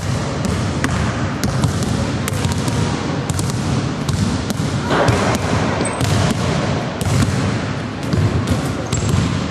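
A basketball bouncing on a hardwood gym floor: a string of irregular sharp thuds over a steady low rumble.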